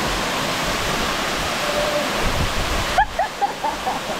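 Steady rushing roar of a waterfall plunging into a rock pool. About three seconds in the roar drops suddenly, and a few short rising calls follow.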